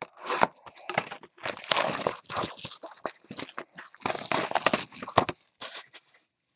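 Shrink-wrapped trading-card hobby box being cut open with a knife and handled: crinkling plastic wrap and light cardboard knocks in irregular bursts that stop about six seconds in.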